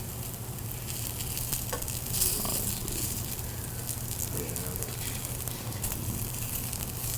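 Potato pancakes frying in butter and canola oil in a pan: a steady sizzle with scattered small crackles, over a steady low hum.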